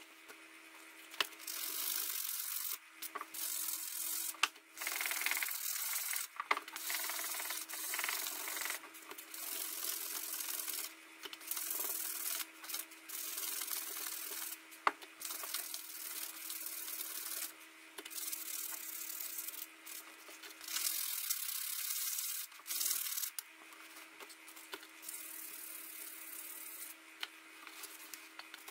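Steel head of a blacksmith's hammer-chisel rubbed back and forth by hand on abrasive paper: a run of scratchy strokes, each a second or two long, with short pauses between them.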